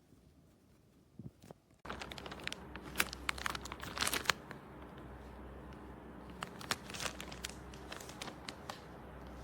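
Crinkling and crackling handling noise, starting abruptly about two seconds in over a low steady hum. The crackles are densest a second or two later.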